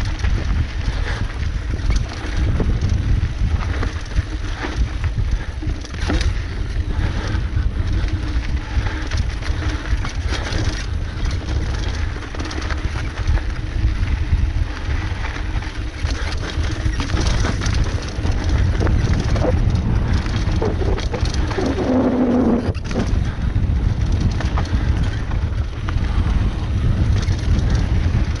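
Mountain bike descending a dry dirt singletrack: wind rumbling steadily on the camera microphone, tyres running over dirt and loose rocks, and many small clicks and rattles from the bike over the bumps. A brief pitched squeal sounds about 22 seconds in.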